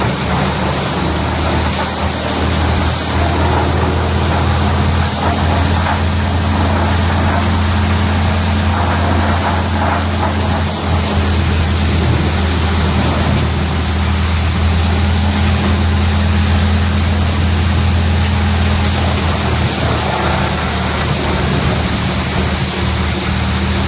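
Industrial stump crusher wood chipper running steadily: a constant low hum under a broad, even noise, with no breaks or pauses.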